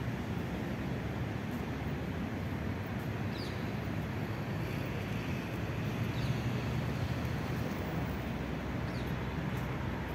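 Steady outdoor background rumble, the kind of mixed wind, distant traffic and sea noise heard while walking, with three faint short high chirps at intervals.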